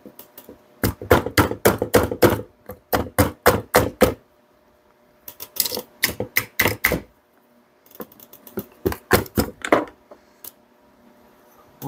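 Three bursts of quick, sharp knocks: a screwdriver tapping on the plastic housing of a Bosch PSB 550 RE drill to work a part into place.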